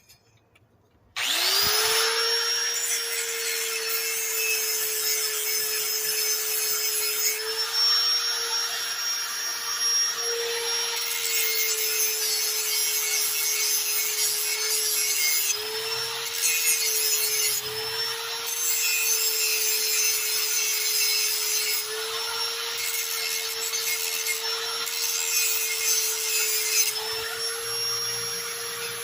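An electric grinder spins up about a second in, its motor settling to a steady whine, and grinds the steel edge of a lawnmower blade to sharpen it, with a harsh rasp that eases and returns several times as the blade is worked.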